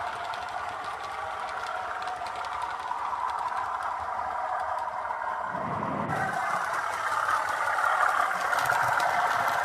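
Hornby Class 37 TTS model locomotive's onboard sound playing a recorded Class 37 diesel engine running, thin and boxy through its small speaker. A brief low swell comes about five and a half seconds in, and the sound grows a little louder near the end.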